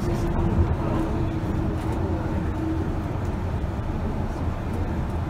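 Kobe Port Liner rubber-tyred automated guideway train running at speed, heard from inside the car: a steady low rumble of the tyres on the guideway. A faint steady tone in the running noise fades out about three seconds in.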